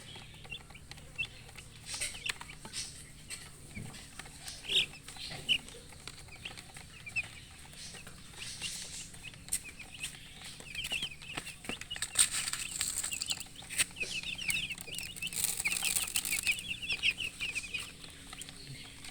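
Baby chicks peeping in many short, high chirps that come thicker in the second half, with two bursts of rustling among them.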